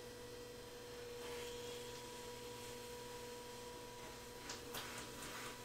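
Faint, steady whine of an electric potter's wheel motor spinning under a centering load of stiff porcelain, with a couple of faint clicks near the end.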